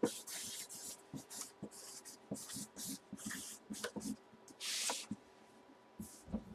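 Marker writing on a cardboard box: a run of short scratchy strokes, with one longer stroke about five seconds in.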